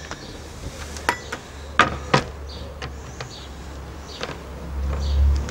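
A tray holding scissors and small tackle being moved and set down on a wooden table: a few sharp knocks and clatters, the loudest about two seconds in. A low rumble runs underneath and swells near the end.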